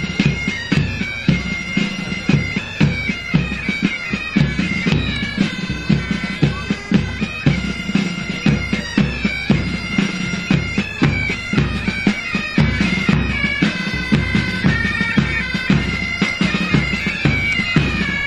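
Pipe band music: bagpipes playing a tune over a steady drumbeat.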